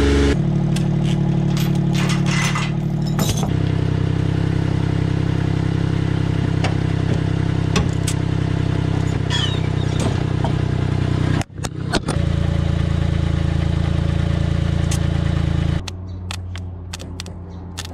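Small three-cylinder mini-truck engine idling steadily, with clicks and rattles of hands working around it. The running sound changes abruptly a few times and drops out briefly around the middle.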